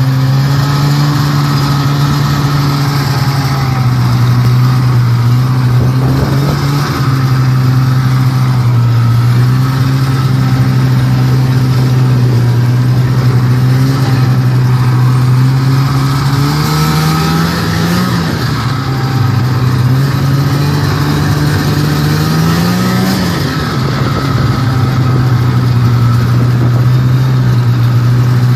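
Snowmobile engine running steadily while being driven, with a steady low drone. Twice, a little past the middle, it revs up briefly and then drops back to its steady note.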